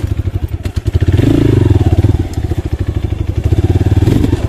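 Trail motorcycle engine running under throttle, revving up about a second in and holding there.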